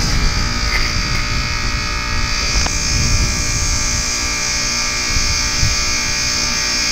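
Goodman heat pump outdoor unit humming and buzzing steadily in its defrost cycle, warming the iced-over unit to melt the ice. A hiss grows stronger about two and a half seconds in.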